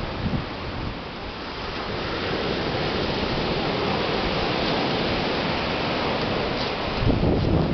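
Sea surf washing onto a beach: a steady rush of breaking waves that swells about a second in. Wind buffets the microphone near the end.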